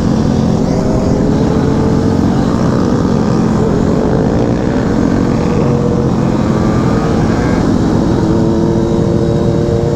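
Motorcycles riding in a group, led by the close sound of a 2017 Kawasaki Z125 Pro's small single-cylinder engine at steady cruising speed, with other bikes' engines mixed in. The engine notes rise and fall gently as the riders roll on and off the throttle.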